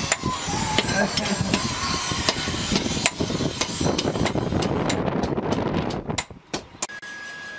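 Hand hammer striking a red-hot steel bar on a railway-rail anvil, a run of sharp metallic blows over a noisy background. The blows speed up to about three or four a second past the middle and stop shortly before the end.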